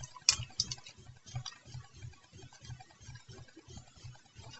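Faint, sharp clicks and taps of small model-kit parts being handled, over a soft regular ticking about two to three times a second.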